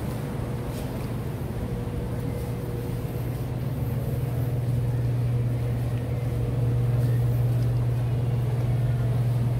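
Steady low hum of a vehicle engine running, growing louder about two-thirds of the way through.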